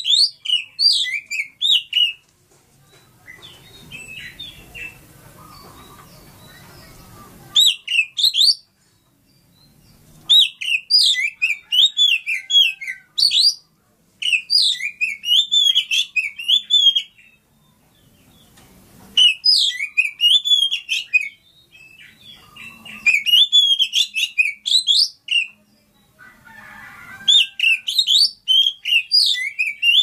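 Oriental magpie-robin (kacer) singing: about seven phrases of rapid, varied high whistles and chirps, each lasting one to three seconds, with short pauses between them. A faint low rustle fills the longest pause near the start.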